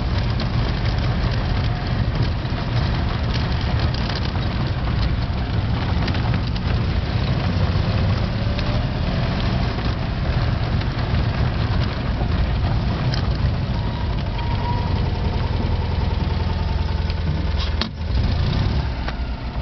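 Citroën Méhari's air-cooled flat-twin engine running steadily as the car drives along a gravel track, heard from the open cabin with road and body noise. A brief sharp knock with a short dip in the sound comes near the end.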